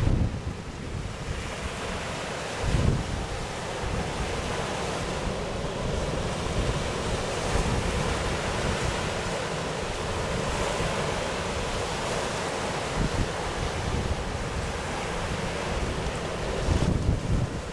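Steady rush of surf breaking on an offshore reef, with wind buffeting the microphone in deep gusts a few times.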